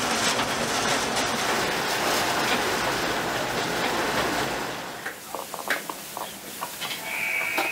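Locomotive running along rail track, a dense steady noise that drops away about four and a half seconds in. Quieter scattered clicks and knocks follow, with a short high tone near the end.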